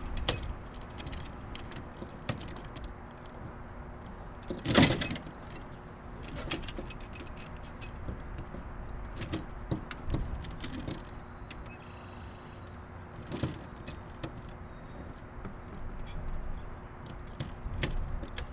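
Metal clinks and rattles of a TV antenna's mounting bracket being fitted onto the antenna boom, its clamps and wing nuts handled. The clicks are scattered, with the loudest clatter about five seconds in.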